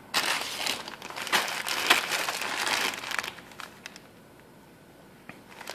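Plastic bag of dried pinto beans crinkling as it is handled and turned over for about three seconds, then only a few faint rustles near the end.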